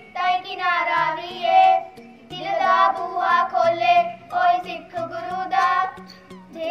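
Two children singing a song together into microphones, in phrases with wavering held notes and short breaks for breath.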